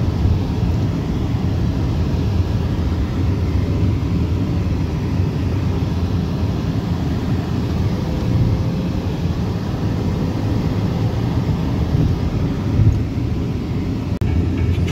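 Steady low rumble of a car's engine and tyres heard from inside the cabin while driving slowly along a rough dirt track.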